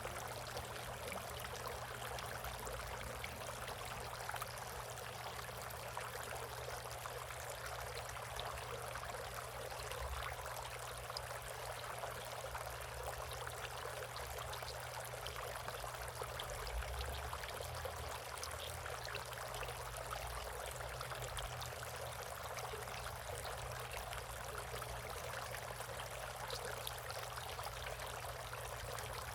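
Water steadily trickling and splashing into a bird bath, as from a fountain or bubbler, with a low hum underneath.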